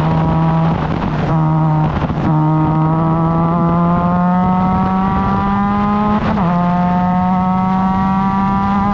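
Formula Mazda race car's rotary engine running hard under acceleration, its pitch climbing slowly. Brief breaks in the note come a little over a second in and again about two seconds in, and a short dip in pitch comes about six seconds in.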